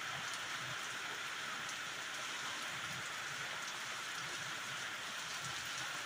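Heavy rain falling steadily on a gravel road and trees, an even hiss that neither builds nor fades.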